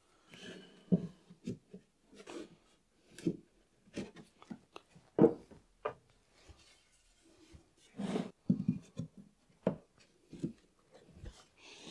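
Wooden parts handled and set together by hand: scattered light knocks and rubs of wood on wood.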